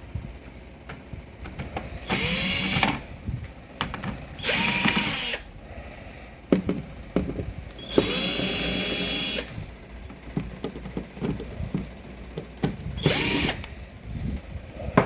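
Cordless electric screwdriver backing out the back-cover screws of an LED TV, in four short runs of the motor that each whine up in pitch as it starts. Small clicks and handling noises come between the runs.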